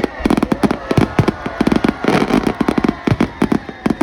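Fireworks going off: a dense, rapid run of sharp bangs and crackling reports, many in quick succession.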